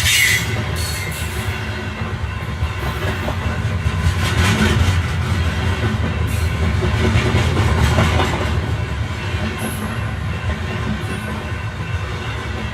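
Electric passenger train running on the rails, heard from on board: a steady low rumble of wheels on track with some clatter over rail joints. A few brief high-pitched wheel squeals rise over it.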